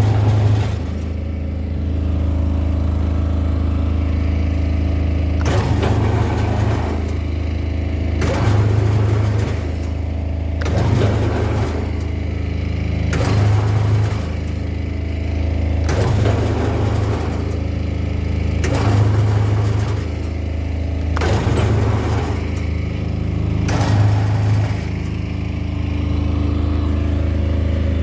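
Electric rebar bending machine running: a steady low motor and gearbox hum, with a louder grinding, clanking burst about every two and a half to three seconds as it works through its bending cycles.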